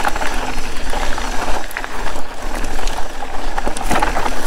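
Pivot mountain bike riding down a loose, rocky trail: tyres running over loose marble-like stones with a continuous rattle and many sharp clicks and knocks.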